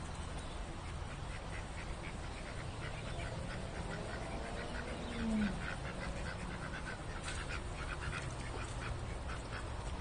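Ducks quacking in a rapid run of short calls, with one louder, lower call that falls in pitch about five seconds in, over a steady low rumble.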